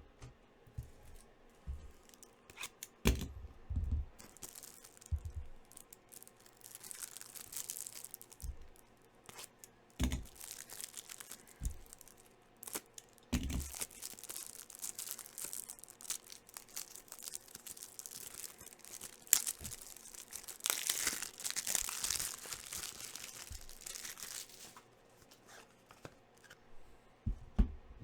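Sports card packaging being torn open and crinkled in several long tearing strokes, with occasional knocks as the product is handled.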